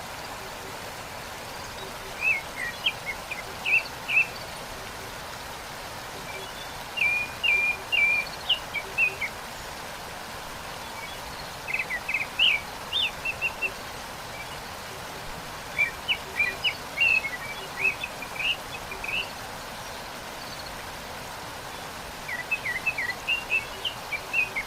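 A songbird singing a short twittering phrase five times, about every four to five seconds, over the steady rush of a waterfall.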